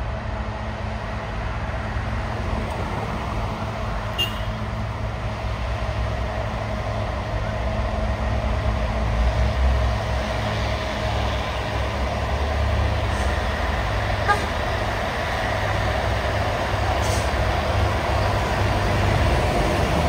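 Heavy truck engine running under load, a steady low rumble that slowly grows louder, with one sharp knock about two-thirds of the way through.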